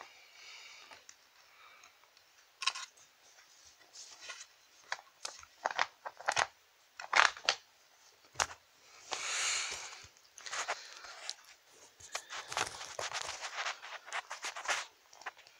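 Handling noise from doll figures being moved about: rustling and crinkling of fabric and plastic with irregular sharp clicks and taps, a longer rustle about nine seconds in, and denser crinkling near the end.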